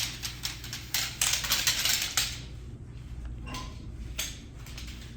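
Tent pole sections clinking and clacking together as they are handled and joined, a string of irregular sharp metallic clicks and short rattles.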